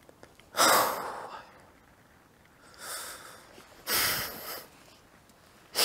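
A man crying: three sharp, noisy sniffing in-breaths between quiet spells, the first loud one about half a second in, a fainter one near the middle, and another loud one about four seconds in.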